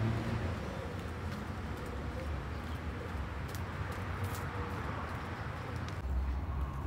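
Outdoor courtyard ambience: a steady low rumble with faint bird cooing, typical of pigeons.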